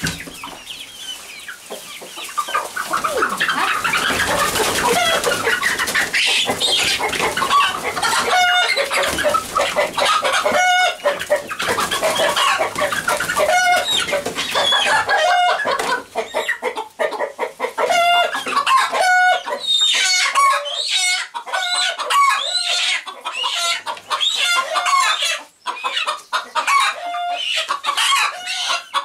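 Young chickens clucking and squawking as one is caught and held for wing trimming. From about eight seconds in, one bird repeats a pitched call roughly once a second.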